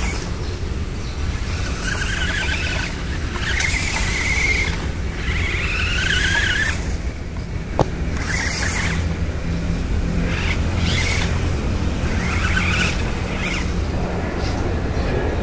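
Small electric motor of a 1:24-scale 4WD RC toy car whining in repeated short runs, the pitch gliding up and down as it speeds up and slows, over a steady low rumble; one sharp click about eight seconds in.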